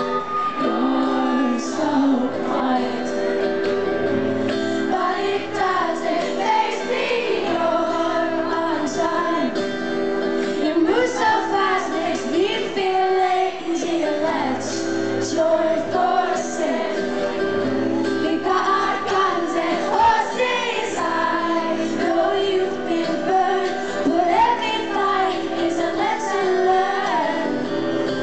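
Live concert music: a woman sings a pop song over her band's sustained keyboard and bass notes, recorded from the audience.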